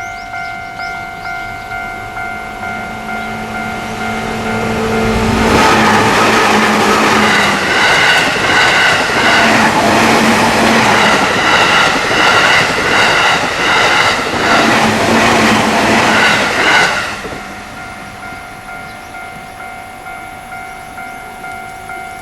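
A Japanese level-crossing warning bell rings in a steady repeating beat. About five seconds in, a train runs through the crossing for about twelve seconds, its wheels clacking over the rail joints, and it drowns out the bell until it has passed.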